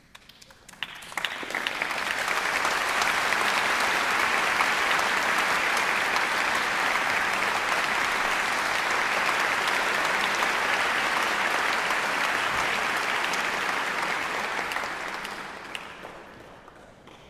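Concert audience applauding: a few scattered claps, then the clapping swells within a couple of seconds, holds steady, and dies away near the end.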